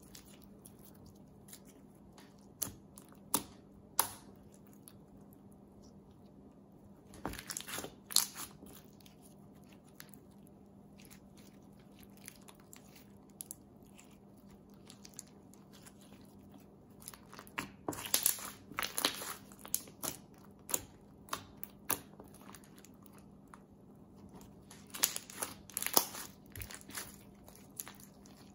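Clear glitter slime with plastic beads mixed through it being squeezed, stretched and pressed by hand: sticky pops, clicks and crackles that come in clusters, several times, over a faint steady low hum.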